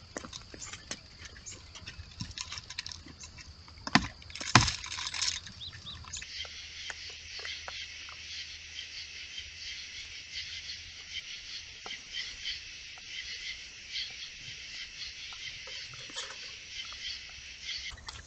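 Audio recorded by a trail camera at a feeder site. In the first part there are scattered light clicks and rustles, with two loud knocks close together about four seconds in. From about six seconds on a dense, steady chorus of night insects fills the sound, with faint clicks and scuffles of raccoons feeding.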